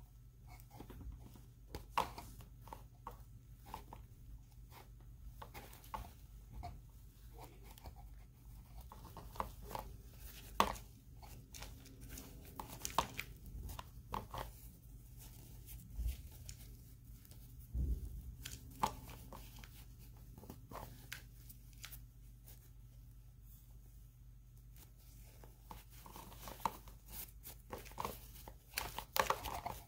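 Hands handling an action figure's cloth uniform: soft fabric rustling with many scattered small clicks and taps, over a faint steady low hum.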